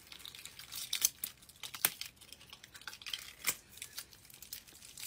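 A latex layer studded with rhinestones being peeled off skin: soft sticky tearing and crinkling, broken by sharp clicks about a second in, just before two seconds and about three and a half seconds in.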